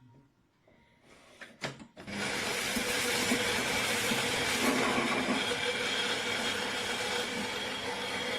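Philips Baristina espresso machine starting with a click, then running its motor with a loud, steady mechanical whir about two seconds in.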